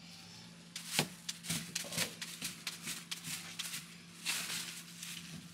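A long knife slicing a peeled pineapple into rounds, the blade cutting through the fruit and knocking on the table in a quick, irregular series of sharp cuts starting about a second in.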